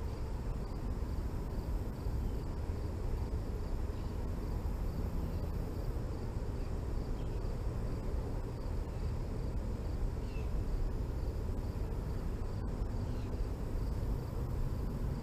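Insects chirping faintly in a steady pulsing rhythm, over a steady low outdoor rumble.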